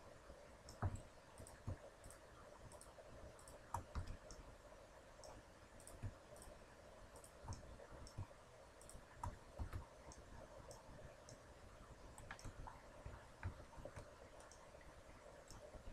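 Faint, irregular computer mouse clicks with a few keyboard key presses, over a faint steady hum.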